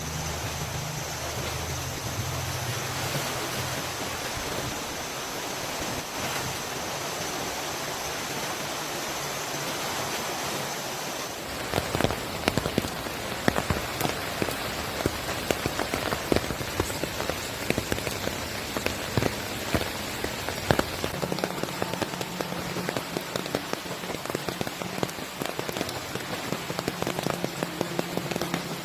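Heavy rain falling steadily. About a third of the way in the sound changes abruptly to close, sharp drop hits striking a surface over the rain's hiss.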